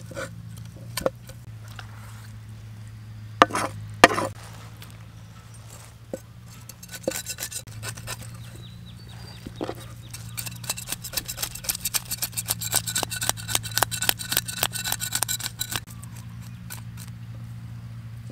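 Steel cleaver scraping scales off a fish on a wooden chopping block: scattered clicks and two heavy knocks of the blade on the block about three and four seconds in, then a long run of rapid scraping strokes that stops a couple of seconds before the end.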